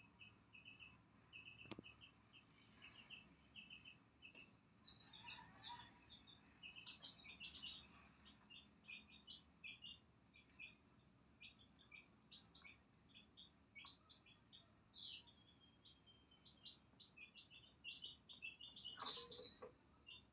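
Domestic chicks peeping faintly: a long run of short, high peeps, a few each second, with louder peeps near the end.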